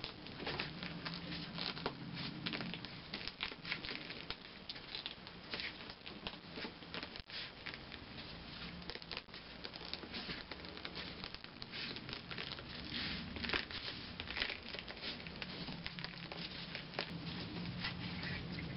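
Nitrile-gloved hands pressing and rubbing the brown-paper facing of an indirect-method mosaic section into wet adhesive: irregular paper rustling and crinkling with soft pats.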